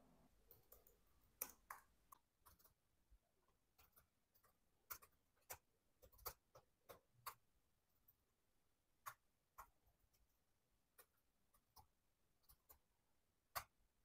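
Near silence with faint, scattered clicks of computer keys and mouse buttons as terminal commands are entered, coming irregularly about once a second.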